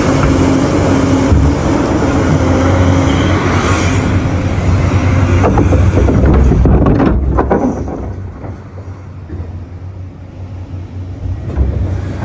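Large diesel mining machinery working at a truck-loading face: a loud, steady engine drone with a low hum and rough mechanical noise. A few sharp knocks come about seven seconds in, then the sound drops back for several seconds and builds again near the end.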